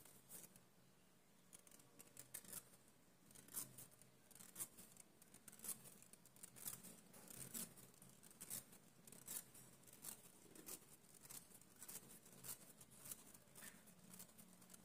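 Twisted cotton threading thread snicking against the upper lip as it is worked back and forth, catching and plucking out the hairs: faint quick snips, about two a second, starting about two seconds in.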